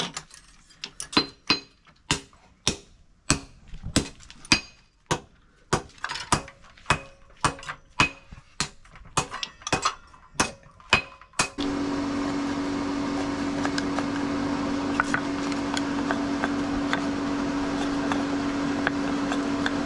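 Metal being struck with a hammer in a workshop: sharp ringing blows, about two a second, for roughly eleven seconds. Then a steady machine hum with one low tone starts suddenly and continues.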